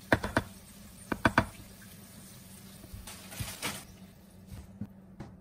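A wooden spoon knocking on a ceramic plate as mashed potato is spooned onto it: two quick clusters of sharp knocks about a second apart, then softer scraping and a few light taps as food is set on the plate.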